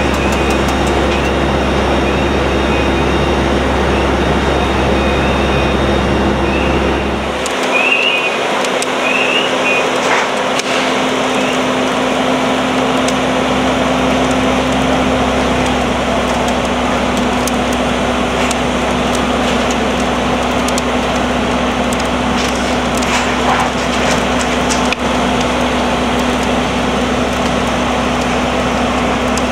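Fire-engine motors and pumps running steadily at a burning building, mixed with the crackling of the burning wooden roof. A deep rumble drops away about seven seconds in, leaving a steadier hum under the crackling.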